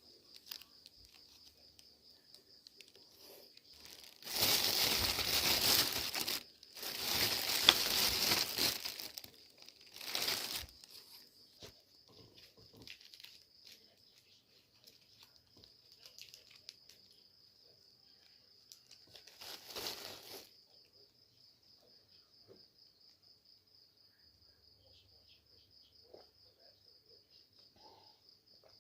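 Crinkling, rustling handling noise in a few bursts, the two longest about two seconds each a few seconds in and shorter ones later, over a steady pulsing cricket chirp.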